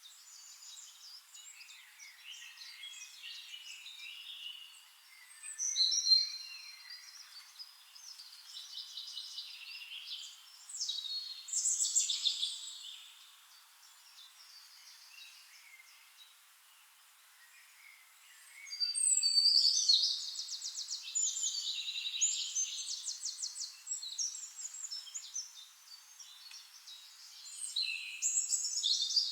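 Songbirds singing: several overlapping songs of high chirps, whistled phrases and rapid trills, coming in bursts, with a quieter lull midway.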